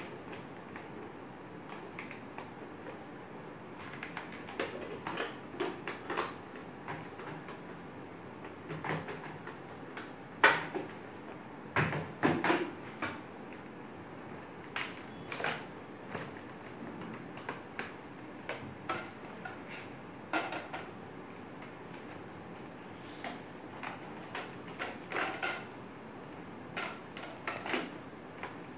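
Plastic parts of a Nerf Zombie Strike Scravenger blaster being handled and snapped together during assembly: irregular clicks, knocks and rattles of hard plastic.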